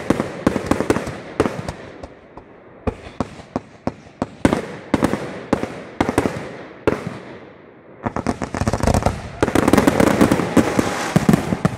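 Aerial fireworks bursting in quick succession, sharp bangs with crackle trailing after them. Just before eight seconds in there is a short lull, then a dense barrage of rapid bangs as many shells go off together.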